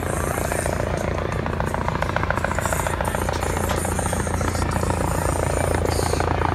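Air ambulance helicopter approaching to land, its rotor beating rapidly over a steady low engine hum, growing slightly louder in the second half.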